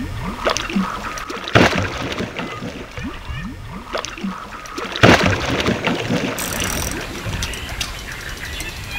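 Water splashing and gurgling, with many short rising blips and two sharp, loud splashes, about one and a half and five seconds in.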